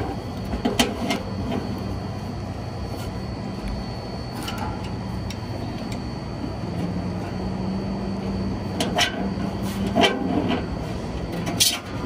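Steady low mechanical hum, with a few knocks and rattles as the condenser fan guard, carrying its motor and blade, is handled and lifted out of the heat pump's top.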